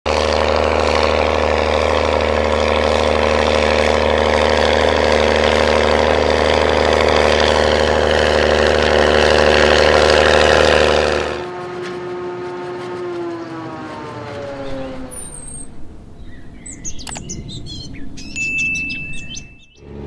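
New Holland T7060 tractor's six-cylinder diesel running steadily under load while pulling a plough. About eleven seconds in it cuts off to a quieter tone that slides slowly down in pitch, and bird chirps follow near the end.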